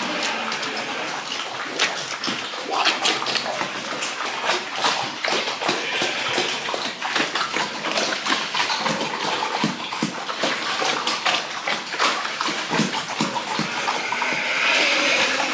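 Water splashing and splattering steadily as pigs and a pigsty are washed down, broken by many short splashes and knocks.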